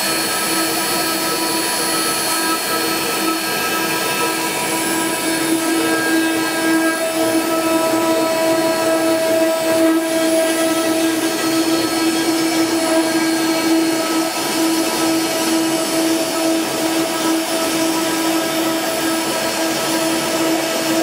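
Water-cooled CNC router spindles running at a steady high speed: a constant whine with overtones over a broad hiss.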